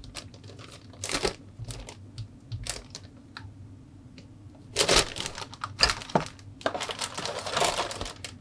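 Plastic bags holding model-kit parts runners crinkling as they are handled, in irregular rustles with light ticks between; the loudest and longest rustling comes in the second half.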